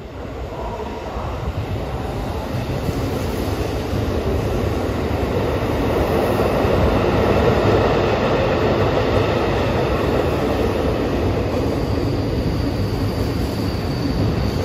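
Tokyo Metro 18000 series electric train passing through a station without stopping: a steady rumble of wheels on rail that builds over the first several seconds and stays loud. A thin high tone comes in over the last few seconds.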